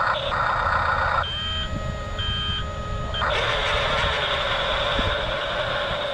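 Toy-grade Double E 579 RC bulldozer driving: its electric motors and plastic gearboxes whir, and its built-in sound effect beeps like a reversing alarm. About a second in the whirring drops away to a quieter stretch with short beeps, then comes back steady after about three seconds.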